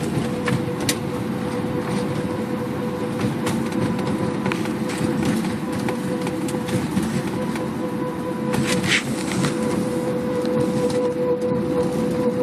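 Mk4 Volkswagen Jetta with a steady hum over road noise. The owner says this hum stops when the brakes are applied, comes back afterwards, and is loud at both slow and fast speeds; a new brake caliper has not cured it.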